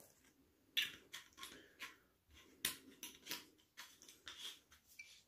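Faint handling of a glass rum bottle and a metal bar jigger: a run of irregular small clicks and scrapes.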